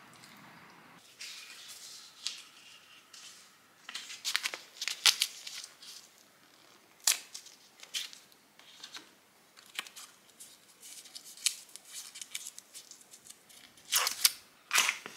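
Close-up handling of a Papier d'Arménie incense-paper booklet: paper rustling and crinkling with sharp snaps and tearing in irregular bursts, busiest a few seconds in and again near the end.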